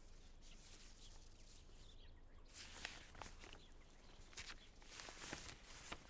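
Faint rustling and crackling of a paper-wrapped parcel being unwrapped, with a run of crisp crinkles and small clicks in the second half.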